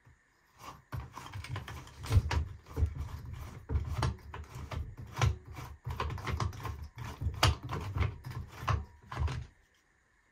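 Irregular clicking, rattling and handling knocks of plastic parts as the side cover of a BLACK+DECKER cordless chainsaw is worked off. The clicking stops about a second before the end.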